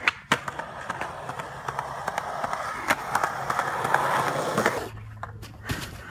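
Skateboard wheels rolling on a concrete path, a rough rumble with scattered clicks that grows louder as the board approaches, then stops about five seconds in.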